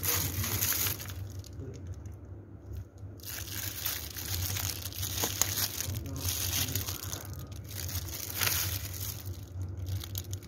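Clear plastic bag lining and a plastic glove crinkling and rustling in irregular bursts as a hand rummages through dried mango slices, with a lull about two seconds in. A steady low hum runs underneath.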